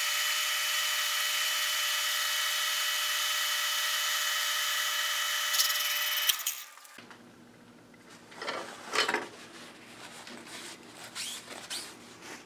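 Metal lathe running under a light finishing cut, a steady high-pitched machine whine. It stops about six seconds in, and a few light knocks and handling sounds follow.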